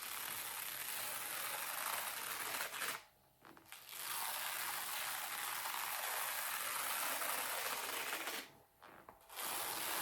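Velcro hook-and-loop strips being slowly pulled apart in long crackling rips, three stretches separated by two short pauses, about three seconds in and eight and a half seconds in.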